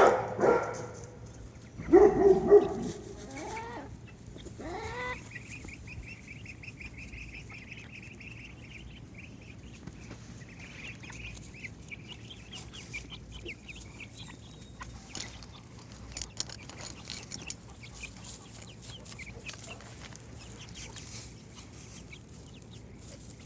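Backyard chickens clucking and calling. There are a few loud squawking calls in the first three seconds, then a run of quick high notes, then only quieter scattered clucks and scratching.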